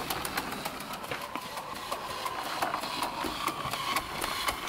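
Model Trevithick Puffing Devil locomotive running along, its working mechanism clicking rapidly and evenly over a faint steady whine.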